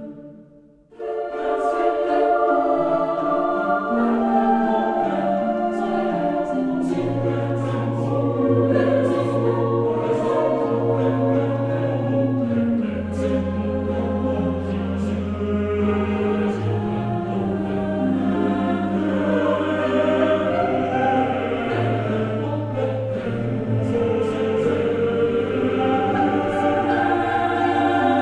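Choral singing: several voices in slow harmony over long-held low bass notes. It starts about a second in, after a short break.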